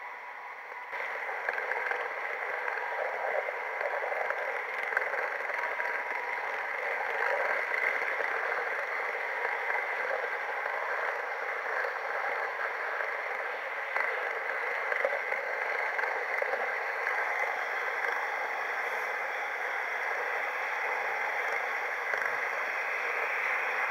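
H0 model train rolling along the track with a camera riding on board: a steady running noise of small wheels on rails and the drive, which steps up about a second in and then holds even.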